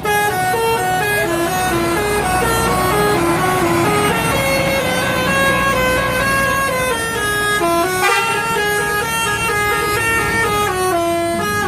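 Indonesian bus telolet horn, a multi-trumpet air horn, playing a long tune of short stepped notes that rise and fall, with a brief slide about eight seconds in.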